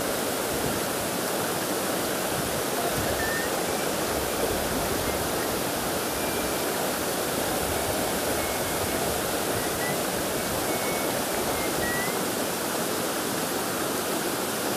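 Shallow rocky stream flowing: a steady rush of running water, with a few faint short high chirps over it.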